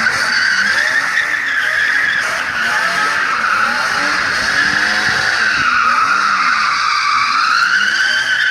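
BMW E34 535i drifting: the rear tyres squeal without a break, the squeal wavering in pitch, over its M30 straight-six held at high revs.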